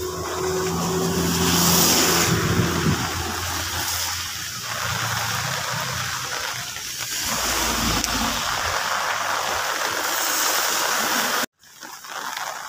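Running water splashing and gurgling steadily, with a low steady hum under it for the first few seconds. It cuts off suddenly near the end.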